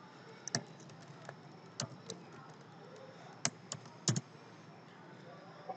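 Computer keyboard typing: about ten short, faint keystrokes at an uneven pace, some in quick pairs.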